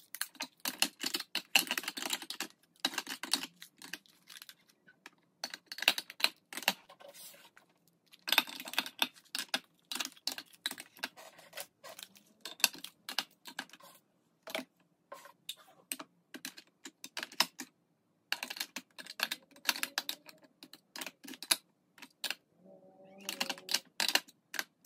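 Plastic makeup compacts clicking and clacking against a clear acrylic organizer as they are set into its slots, in quick clusters of sharp taps with short pauses between.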